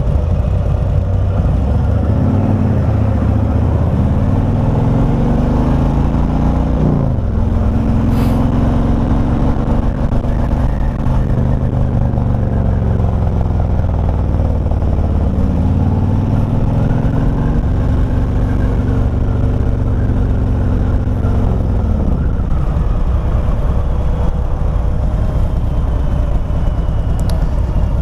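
Harley-Davidson CVO V-twin motorcycle engine running under way, its pitch rising and falling several times as the bike speeds up and slows down, over a steady rush of riding noise.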